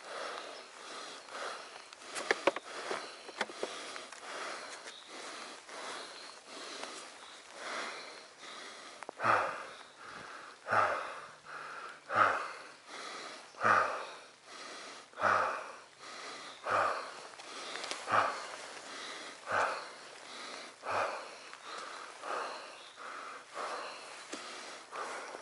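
A person breathing hard close to the microphone. The breaths grow heavy about nine seconds in, with about one loud breath every second and a half.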